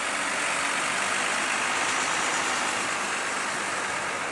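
Tour bus engine running, a steady rushing noise with no horn sounding.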